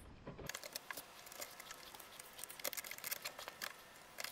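Nylon zip tie being pulled tight through its locking head on a plastic fender: a run of faint, irregular ratcheting clicks.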